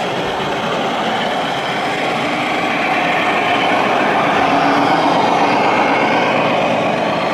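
Radio-controlled model Scania truck with a tanker trailer running past, a steady mechanical running noise that grows louder from about three seconds in as it comes close, over the hum of a busy exhibition hall.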